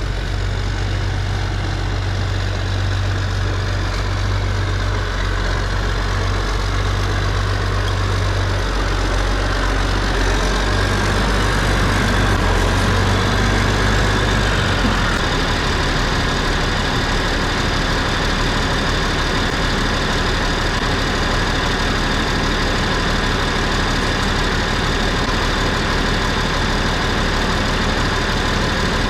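Tractor engine running steadily, with the low drone shifting in pitch about halfway through.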